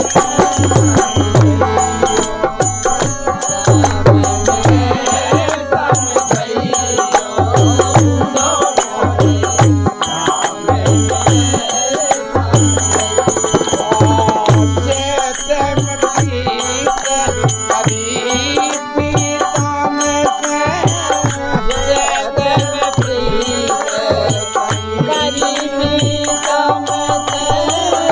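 Bundeli Kartik folk song: a man sings the melody over a harmonium, with a dholak beating a steady rhythm and a metallic jingling marking the beat.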